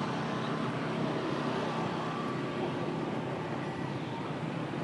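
Steady background noise, an even hum with no distinct events.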